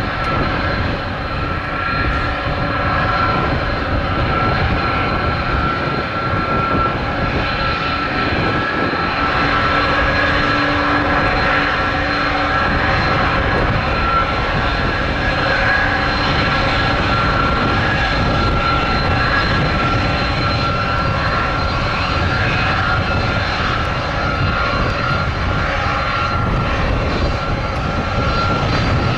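Twin turbofan engines of an Airbus A300 freighter running steadily at low power as it taxis, with a constant high whine over a rumbling roar.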